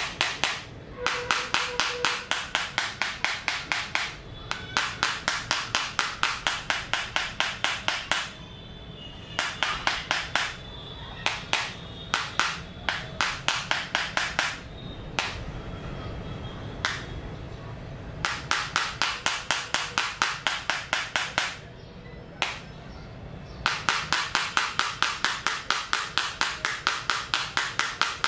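Tip of a metal hex key tapping rapidly on the glass touchscreen of a Redmi Note 10S, sharp clicks about six a second. The taps come in runs broken by short pauses.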